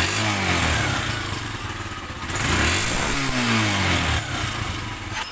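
Honda TMX 125 Alpha's single-cylinder four-stroke engine revved twice, the pitch climbing and then falling back each time, now running after its hard-starting ignition fault was fixed.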